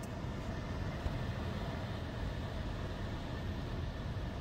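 Steady noise inside a car's cabin as the car creeps slowly into an automatic car wash bay, with no separate events.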